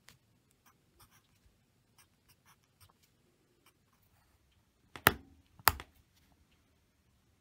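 Wooden pencil writing on paper in short, faint scratchy strokes, then two sharp snaps a little past halfway through as the pencil lead breaks.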